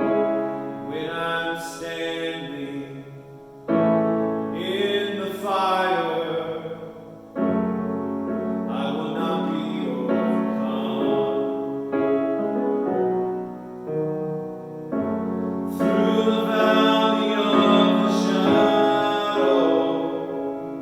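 Piano music with a voice singing over it in sustained, wavering notes, in phrases that start afresh about four, seven and fifteen seconds in.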